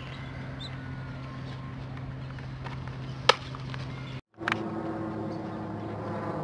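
A pitched baseball smacking into a catcher's leather mitt once, a single sharp pop about three seconds in, over a steady low hum.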